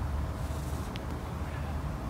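Wind buffeting the microphone: a steady low rumble, with one faint short click about a second in.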